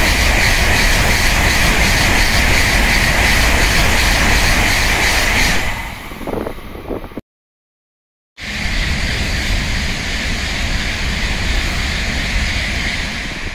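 Tokaido Shinkansen train passing at speed with a loud, steady rushing noise that fades about six seconds in; the sound then cuts off abruptly, and after about a second of silence a second loud pass begins and fades near the end.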